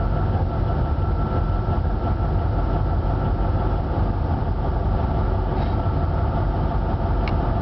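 Vossloh G1000 BB diesel-hydraulic locomotive's engine running steadily, heard from inside the cab as it rolls along the track. A faint high whine fades out about halfway through.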